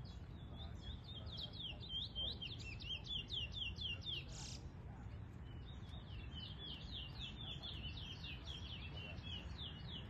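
Towa-towa (chestnut-bellied seed finch) singing long runs of quick, high downslurred notes, with a short pause about halfway through.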